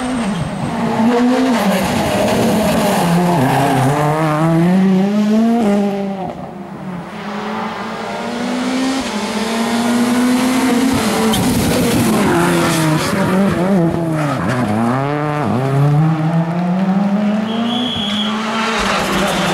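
Rally cars driven flat out on a tarmac stage, among them a Ford Fiesta rally car. The engine note climbs and drops again and again through gear changes, with sharp drops and rises near the middle where the cars brake and downshift into bends.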